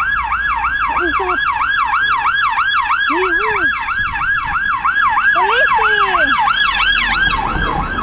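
Police car siren on the fast yelp setting, its pitch sweeping up and down about three times a second. The sweep breaks up near the end.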